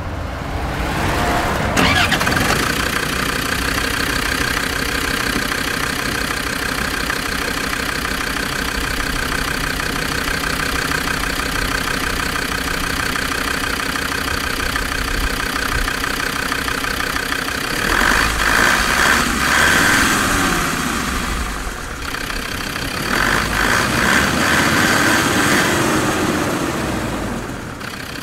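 Land Rover Discovery 2's Td5 five-cylinder turbo-diesel starts up about two seconds in and settles into a steady idle. Later it is revved twice, each time rising and falling back to idle.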